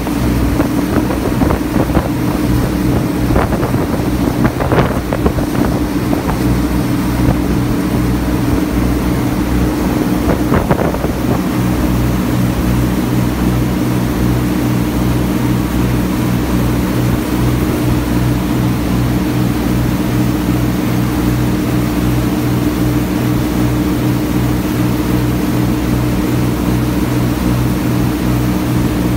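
Small ferry boat's engine running steadily under way, with wind and the rush of the churning wake. There are a few short knocks in the first ten seconds or so.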